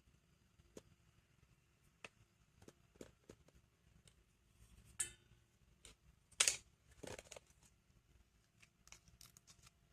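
Slime being squeezed and kneaded by hand: faint sticky clicks and squelches, with two louder wet smacks about five and six and a half seconds in.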